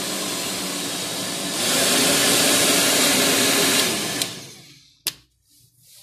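Handheld professional hair dryer blowing steadily, growing louder about one and a half seconds in. Near the end it winds down and stops, followed by a single sharp click.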